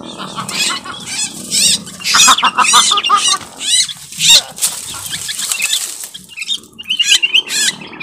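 Sooty-headed bulbul (kutilang) giving runs of rapid, harsh, squawking calls, with bouts of wing flapping: a bird struggling at the lure stick.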